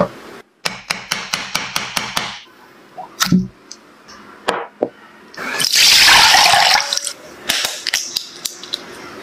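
A quick run of about a dozen sharp taps, then a few separate knocks, then fresh coconut water pouring out for about a second and a half. Near the end come several sharp cracks as an egg's shell is broken open over a glass bowl.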